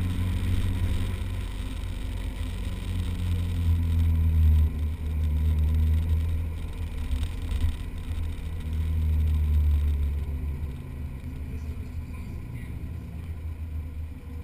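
Autocross car's engine heard from inside the cabin during a timed run, its note rising and falling as the driver accelerates and lifts between cone gates, with a brief drop about four and a half seconds in.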